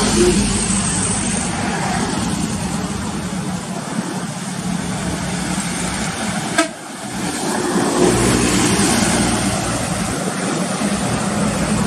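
Road traffic: an intercity bus and other vehicles passing at a highway bend, a steady engine drone with tyre noise. A sharp click and brief dip in level about six and a half seconds in.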